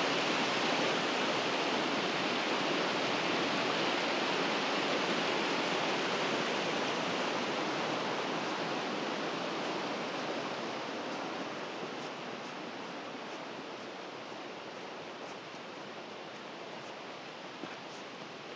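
Steady rush of a river's flowing water, growing gradually fainter over the second half, with a few faint clicks near the end.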